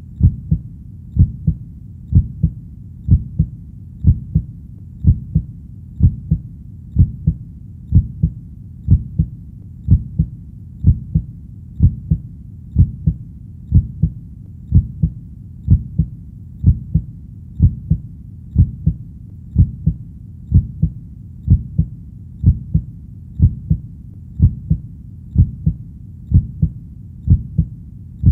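Human heartbeat, steady and slow at about one beat a second, each beat a low double thump (lub-dub).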